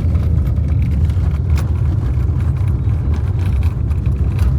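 Steady low rumble of a car on the move, heard from inside the vehicle: road and engine noise.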